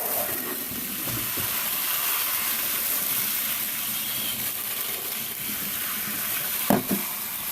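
Water spraying from a sink sprayer onto a metal CPU heatsink, a steady hiss.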